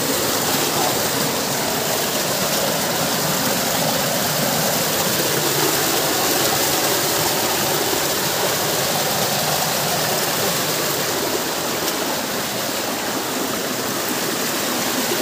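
Steady rush of stream water flowing strongly over rocks.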